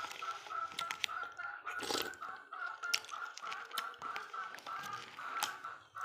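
Eating sounds of chewing and sharp clicks of a spoon, over a steady, rhythmic chirping or clucking in the background, about three to four pulses a second.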